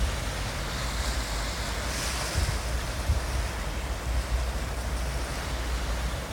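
Sea waves washing onto a beach: a steady hiss of surf that swells brighter about two seconds in, with wind rumbling on the microphone underneath.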